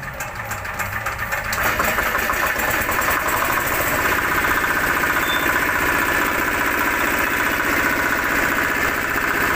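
Jiang Fung 7 HP single-cylinder diesel engine being hand-cranked and catching, picking up speed over the first two seconds, then running steadily with a fast, even beat while it drives a Shark 1 HP air compressor pump.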